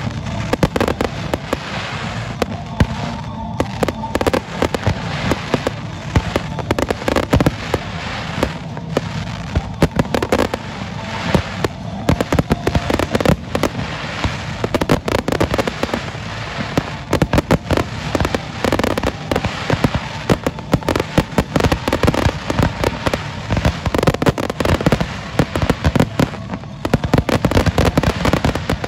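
Aerial fireworks display: a dense, unbroken barrage of loud bangs from shells bursting and comets launching, many per second.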